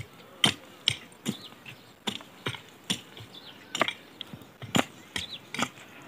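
A short-handled hoe chopping into dry, stony soil to loosen a terraced field before sowing maize: a series of sharp strikes, about two a second at an uneven pace.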